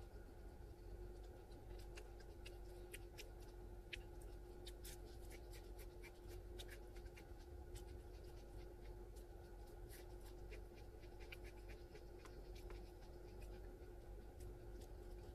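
Faint scratching and clicking of a utensil working food in a takeout breakfast container, over a steady low hum.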